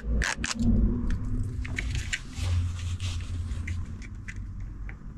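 Clear plastic backing film being peeled off double-sided adhesive tape on a plastic USB hub, with crinkling and a run of small plastic clicks as the hub is handled and set against the bed frame's edge.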